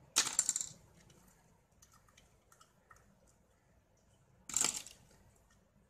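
Two short crackling scrapes of plastic, about four seconds apart, as the deflection yoke and its clamp ring are twisted and worked loose on the CRT's glass neck, with faint ticks of handling between.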